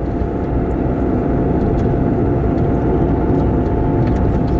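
Car driving, heard from inside the cabin: a steady rumble of engine and tyres on the road with a faint, constant whine, getting slightly louder about a second in.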